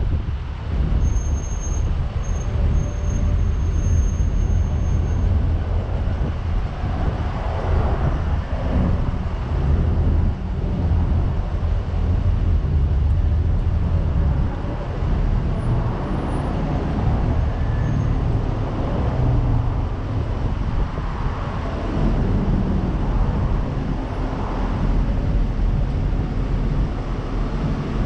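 Street traffic passing close by, several vehicles swelling past one after another over a steady low rumble.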